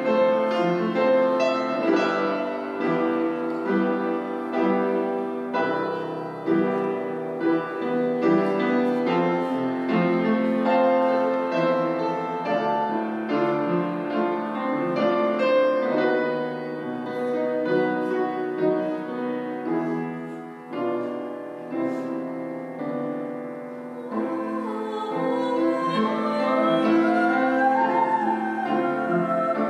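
Piano playing a classical-style accompaniment introduction; near the end a young woman's solo singing voice comes in over the piano.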